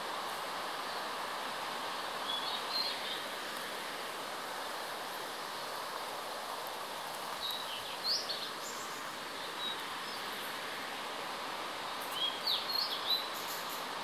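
Steady rushing of a distant waterfall, with a songbird giving short chirping phrases three times: about two seconds in, around eight seconds in, and a quick run of notes near the end.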